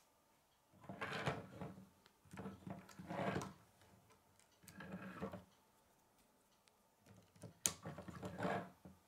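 K'nex plastic rods and connectors being handled and pushed together: four short spells of clicking and rattling plastic, with the sharpest snap near the end.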